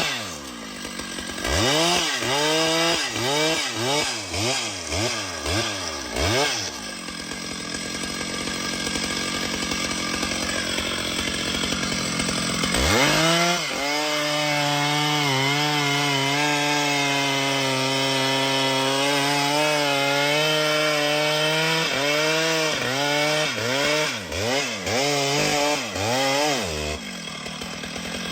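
Chainsaw engine revved in quick repeated bursts, then running lower for a few seconds. Around halfway it is held at high speed for about nine seconds, consistent with cutting into wood, then blipped several more times before dropping back to idle near the end.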